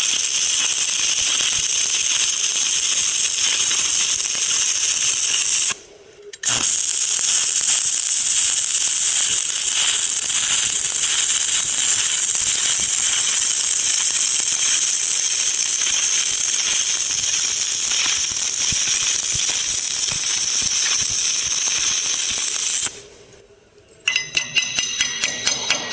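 Welding arc crackling and sizzling steadily through a long bead. It pauses briefly about six seconds in and stops near the end. A quick run of ringing metallic clicks follows in the last two seconds.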